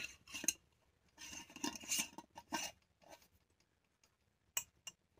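Glass mason jar and its metal screw band being handled: a short clink, then a couple of seconds of faint scraping and clinking of metal against glass, and two sharp clicks near the end.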